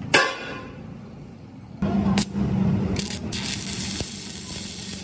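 Stick (arc) welding: a sharp crack as the electrode arc starts, then, about two seconds in, the arc sputtering and crackling steadily with a low hum beneath it.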